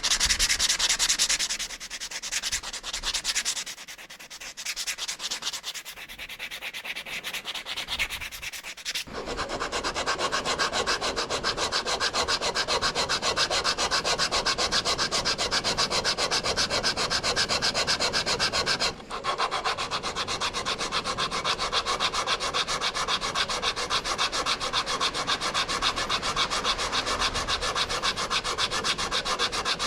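Fast, steady scrubbing or rubbing strokes, changing character about nine seconds in and breaking off for a moment about nineteen seconds in.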